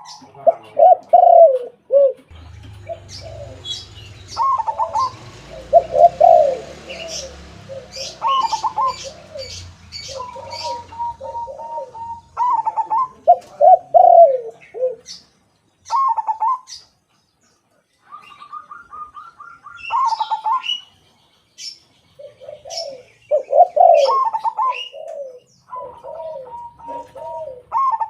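Caged zebra dove and spotted dove cooing in turn: rolling, repeated coo phrases, some lower and some higher and steadier, with short high chirps between them. A low rumble runs under the calls from about 2 to 11 seconds in.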